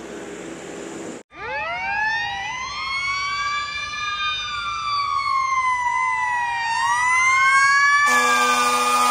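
Ambulance siren wailing, its pitch sweeping slowly up and down and growing louder as the vehicle approaches. Near the end a steady horn tone sounds over the wail.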